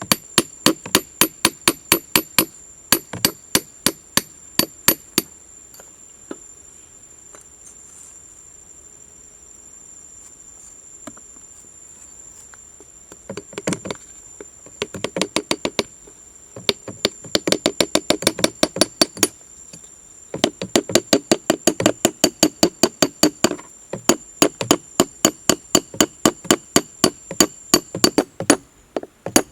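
Runs of sharp, evenly spaced tapping strokes, about four a second, stopping for several seconds in the first half and then resuming. A steady high insect drone runs underneath.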